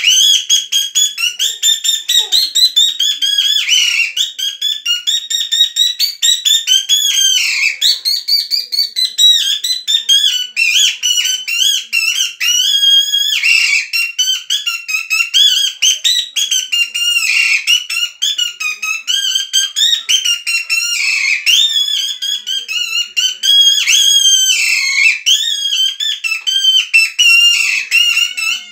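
Kathputli puppeteer's mouth reed whistle (boli) giving the dancing marionette its voice: a shrill, squeaky chatter that warbles up and down in quick syllables without a break.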